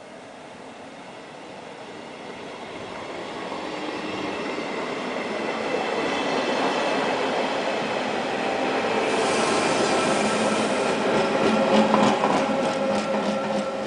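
SBB NPZ Domino regional electric train running past close by, growing louder as it approaches into a steady rush of wheel and running noise with a faint steady whine. From about nine seconds in, wheels click evenly over the rail joints.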